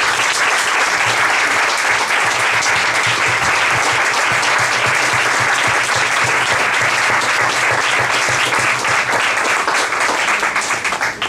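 Small audience and panel applauding: steady hand-clapping that starts all at once and dies away near the end.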